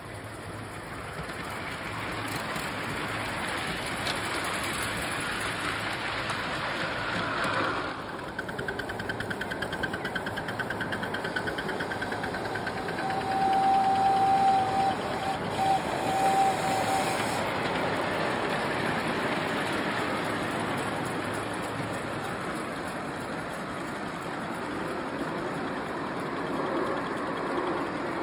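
Ride-on miniature live-steam locomotives running on track, a steady noisy working sound. About halfway through, a steam whistle sounds one long blast followed by two short ones.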